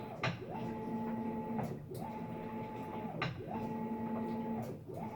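Maytag MVWB765FC top-load washer agitating, its motor whine rising and falling with each back-and-forth stroke. A loud click sounds at every reversal, about every one and a half seconds. The owner takes it for a loose drive gear or retaining part slapping; the repair service called it the clutch cycling on and off, normal for this model.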